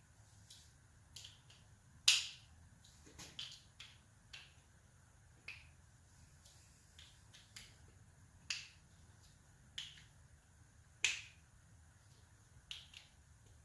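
Irregular sharp metallic clicks and taps, a second or two apart, with the two loudest about two seconds in and about eleven seconds in: head studs being handled and threaded into an LS V8 engine block.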